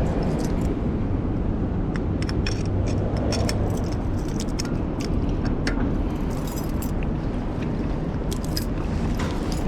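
Steady wind and road rumble while riding a fixed-gear track bike, with irregular metallic jangling and clicks throughout.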